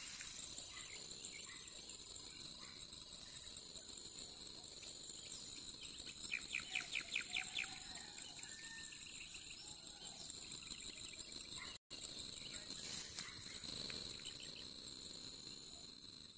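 Steady, high-pitched insect chorus shrilling without a break, with a quick run of short chirps about seven seconds in. The sound drops out for an instant about twelve seconds in.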